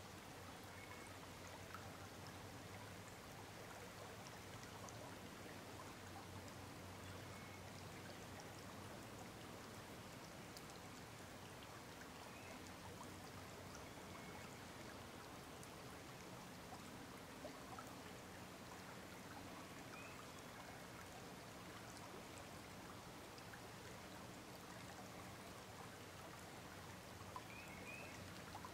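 Faint, steady rush of a shallow stream flowing, with a few brief faint high chirps now and then.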